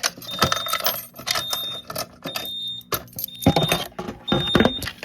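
Clicks and rattling of a fire alarm pull station being handled and reset under its hinged protective cover, with a high electronic beep repeating about once a second.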